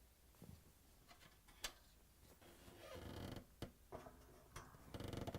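Faint metallic clicks and a scraping creak as pliers work the door springs off a dryer door hinge, ending in a quick rattle.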